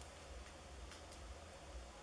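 Near silence: room tone, with a faint steady hiss and a low hum.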